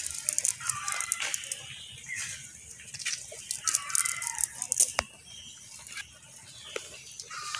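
A cast net being lifted and shaken: its lead sinkers clink and rattle and the mesh rustles, with a sharp knock about five seconds in. A chicken clucks in the background.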